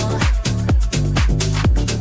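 Bass house music from a DJ set: a steady, evenly spaced dance beat over a deep bass line.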